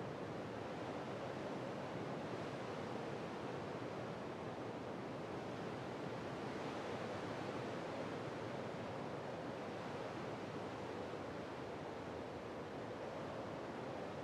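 Steady rushing wind noise with no engine note, even and unchanging throughout.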